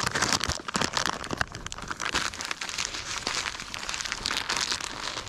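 Plastic soft-bait bag crinkling as it is handled, with a dense run of quick crackles.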